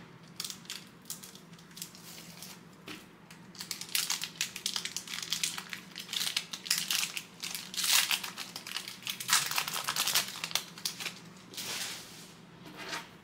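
Crinkling and tearing of a trading-card pack wrapper as a pack is opened and handled, in irregular rustling bursts that are busiest in the middle.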